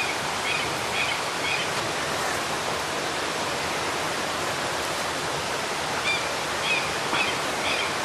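Waterfall rushing steadily, an even wash of falling water. A few faint, short high chirps sound near the start and again near the end.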